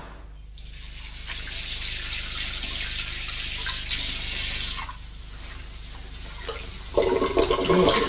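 Water running from a tap onto hands being washed in a sink. It starts just under a second in and stops about five seconds in. About seven seconds in, a louder sound with a definite pitch comes in.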